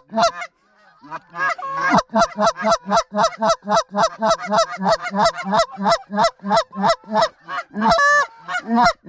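Canada goose honking: a rapid, regular run of short honks and clucks at about four a second, with a couple of longer, drawn-out honks near the end.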